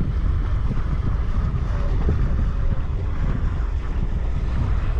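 Wind buffeting the camera's microphone on a boat: a steady low rumble with a fainter hiss above it.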